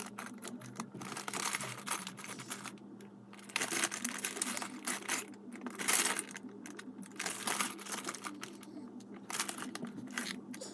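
Plastic Lego pieces being handled: irregular clicks, rattles and rustling as bricks are picked from the pile and pressed together, over a faint steady hum.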